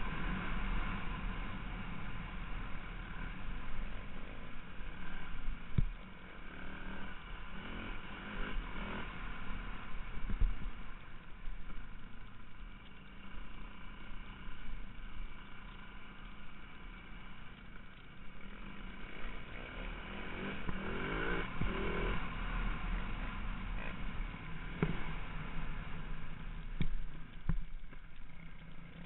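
Single-cylinder four-stroke enduro motorcycle engine heard from a helmet camera, revving up and dropping back again and again as the rider accelerates and shifts, over a steady wind rumble on the microphone.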